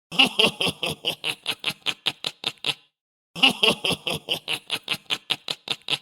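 Sinister laugh sound effect: a rapid run of laughing pulses, about six a second, played twice, each run loudest at the start and tapering off.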